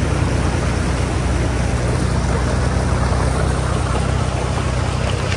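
Can-Am Defender side-by-side's engine running at a steady speed, a low, even drone.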